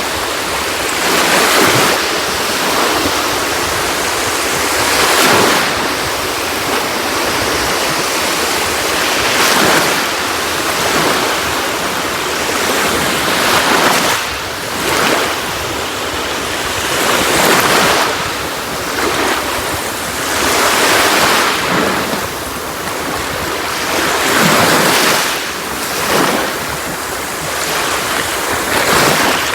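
Sea waves breaking on a shore, a steady wash of surf that swells with each wave every two to four seconds.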